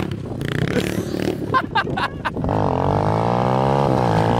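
Small dirt bike's engine revving as it is ridden. Uneven at first, then from about halfway a clear engine note that rises and falls with the throttle.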